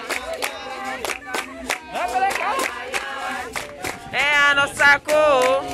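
Capoeira roda music: several voices singing over steady handclaps and sharp percussion strokes, about two to three a second. About four seconds in, the singing turns loud, high and wavering.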